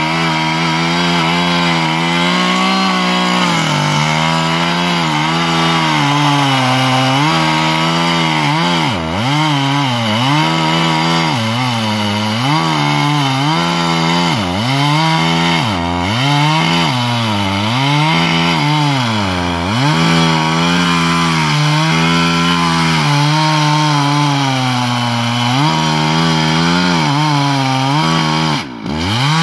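Husqvarna 365 two-stroke chainsaw running at full throttle while cutting into a pine trunk. Its engine pitch repeatedly sags and recovers as the chain loads up in the cut. Near the end the engine drops off briefly and revs back up.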